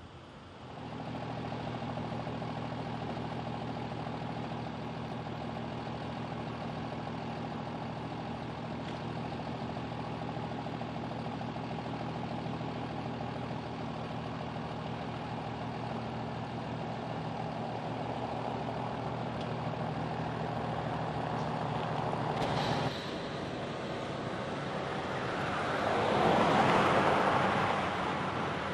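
A vehicle engine running steadily at an even pitch. Near the end a louder swell of engine noise rises and falls, like a vehicle moving close by.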